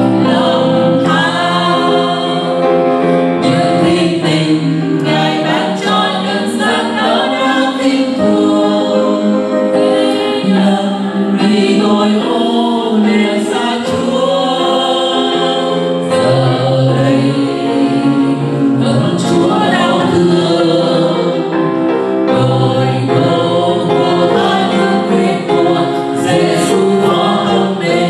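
A woman and two men singing a Vietnamese hymn in harmony into microphones, with piano accompaniment.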